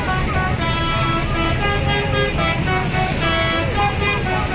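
Tour bus 'basuri' telolet horn playing a melody of short, steady notes that change pitch every fraction of a second, over a low rumble.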